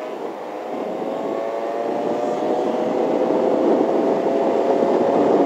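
Motor scooter engine running under acceleration, its pitch rising slowly and its sound growing louder, over a steady rush of wind noise.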